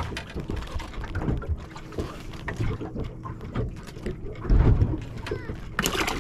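Wind on the microphone and water lapping against a small boat, with scattered clicks and knocks from handling a fish and fishing tackle, and a low thump about four and a half seconds in.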